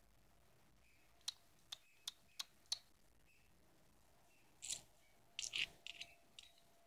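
Faint plastic-on-plastic sounds: a toy spoon clicks five times in quick succession against a plastic bowl, then scrapes briefly a few times as it scoops up pieces of cut drinking straw.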